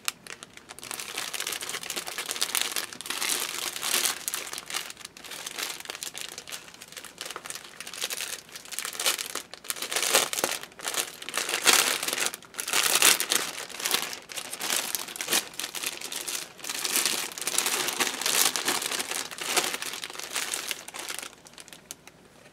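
Clear plastic bag crinkling and rustling as it is handled and opened by hand, in irregular crackly surges that stop shortly before the end.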